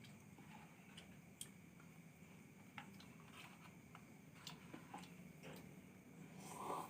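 Near silence, with faint scattered clicks and ticks and a short, slightly louder sound just before the end.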